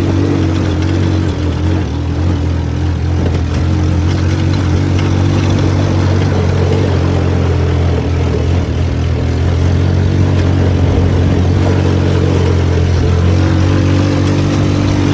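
DF200GKV buggy's 200cc single-cylinder engine running at a fairly steady speed under way, its pitch holding nearly level throughout.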